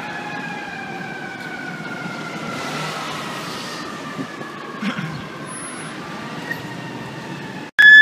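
Fire truck siren over street traffic, one long wail that falls slowly in pitch for about six seconds as it winds down. Near the end it cuts off suddenly and a much louder, steady blaring tone begins.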